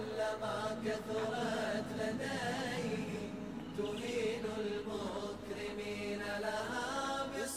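Arabic nasheed on the soundtrack: a voice chanting in long, drawn-out sung phrases.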